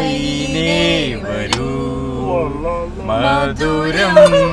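People singing a melody together inside a car, with long drawn-out, wavering notes. A short sharp click comes about one and a half seconds in.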